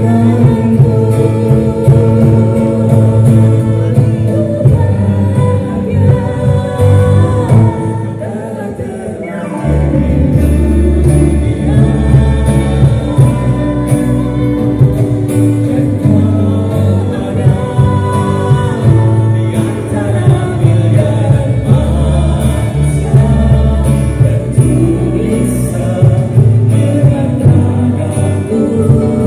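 Amplified band music with several voices singing together, guitars and a heavy bass beat. About eight seconds in the music thins and the bass drops out, then comes back in strongly near ten seconds.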